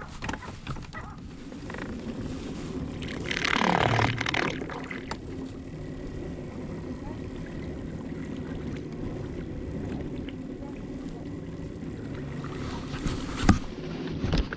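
Steady hum of an electric bow-mounted trolling motor running. About four seconds in comes a loud swish that falls from high to low pitch, and near the end there are a couple of sharp clicks.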